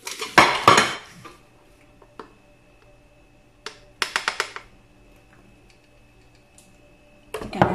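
Knocks and taps from a plastic food processor bowl being handled and tipped out over a glass baking dish: two loud knocks in the first second, then a quick run of about five sharp taps around four seconds in, with a faint steady hum underneath.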